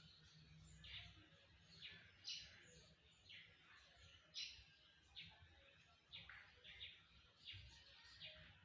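Faint bird chirps: short, high, slightly falling calls repeating about once or twice a second.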